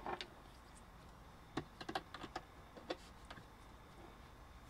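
Cylindrical lithium-ion cells clicking faintly against one another and the wooden bench as they are pushed into a row by hand: scattered light taps, bunched together around two seconds in.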